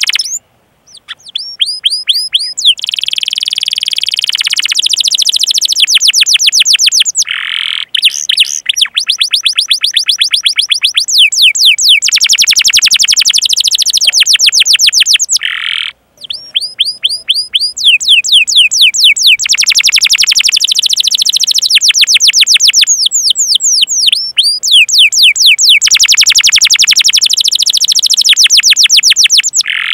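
Domestic canary singing long, fast rolling trills ('ngerol') of rapidly repeated downward-sweeping chirps ('cuit cuit'). The runs are loud and dense and break off in a few brief pauses, near the start, around a quarter of the way in and about halfway.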